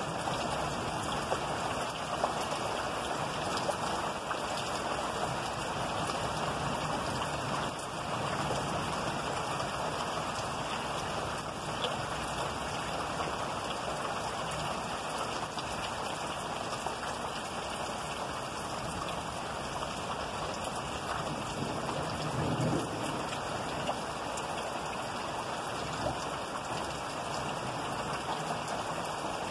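Steady rain falling during a thunderstorm, an even hiss, with a brief low thump about three-quarters of the way through.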